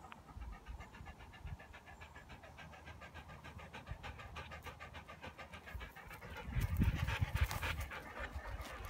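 A dog panting fast and rhythmically close to the microphone, about six breaths a second. About two-thirds of the way through, a louder low rumbling noise lasts around a second.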